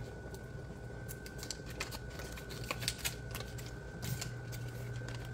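Light, irregular clicks and taps of cookware and utensils being handled at the stove, over a faint steady hum with a thin high whine.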